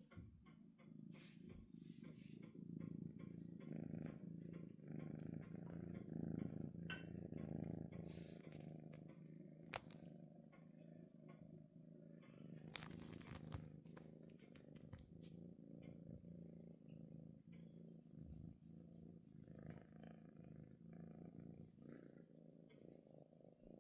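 Domestic cat purring steadily while being stroked, a soft continuous low rumble, with a few brief faint clicks over it.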